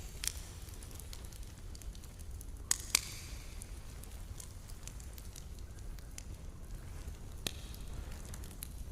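Campfire burning, with a low steady rumble and scattered sharp crackles and pops of burning wood, two loud pops close together about three seconds in.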